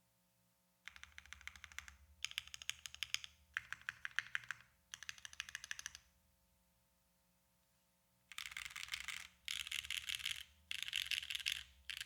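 Typing on a Mode Envoy mechanical keyboard with hand-lubed Gateron Khonsu switches, an aluminium plate and JTK keycaps: fast clacking keystrokes in short runs, a pause about six seconds in, then denser, louder runs of keystrokes near the end.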